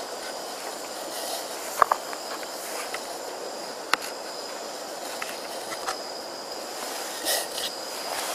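Kitchen knife slicing cherry tomatoes on a small plastic chopping board: a few sharp clicks as the blade hits the board, over a steady hiss.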